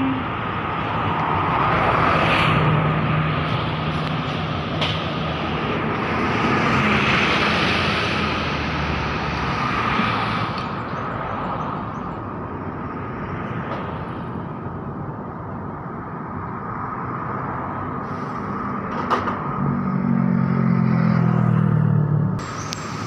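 Road traffic passing on a multi-lane road: cars and a bus go by in swells of tyre and engine noise. A low engine drone from a heavy vehicle stands out a few seconds in and again near the end, over a thin steady whine.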